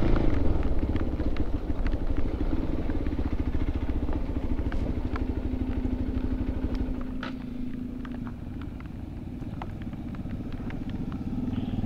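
Motorcycle engine running as the bike rides along, its steady pulsing note easing off and going quieter about seven seconds in, then picking up a little toward the end.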